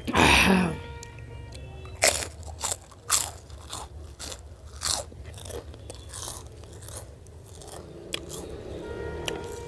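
Close-miked crunching and chewing of food: one loud crunching bite at the start, then a run of sharp crunchy chews about two a second that fade to softer chewing.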